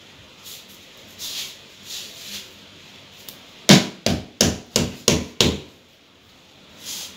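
Six sharp knocks in quick succession, about three a second, a little past halfway through; the first is the loudest. A few softer, duller bumps come before them.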